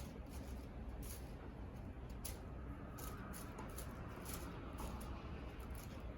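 A kitten playing with a toy: light, irregular rustles and ticks, a few each second, over a low steady room hum.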